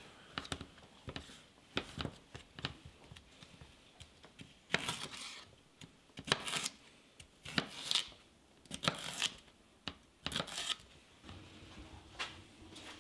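Kitchen knife slicing a yellow bell pepper into strips on a wooden cutting board: a series of crisp cuts at uneven intervals, about one a second.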